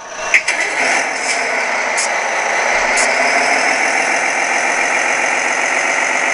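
1:16 radio-controlled excavator's Servonaut sound system playing a diesel engine running steadily through its small speaker, with a sharp click shortly after the start.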